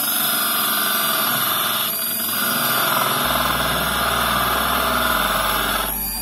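Unimat SL mini lathe running while a carbide-insert wood turning tool cuts a spinning wooden dowel: a steady scraping cutting noise over the lathe motor's whine. The cut eases briefly about two seconds in and stops about six seconds in.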